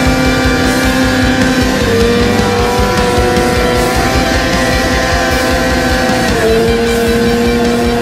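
Snowmobile engine held at high revs as the sled skims across open water, its pitch steady with a small drop about two seconds in and another near the end.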